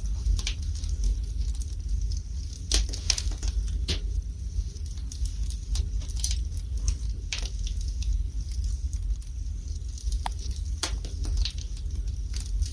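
Wood fire burning in a fireplace, crackling with irregular sharp pops over a low steady rumble.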